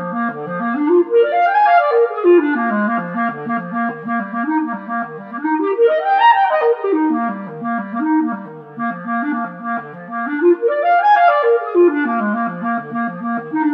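Buffet E11 clarinet playing fast runs of notes that climb steeply and tumble back down, three times over, through a concert-hall reverb effect.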